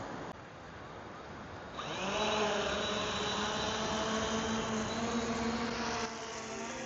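Bait-drop fishing drone spinning up about two seconds in, then a steady, high propeller buzz as it carries the bait out to sea.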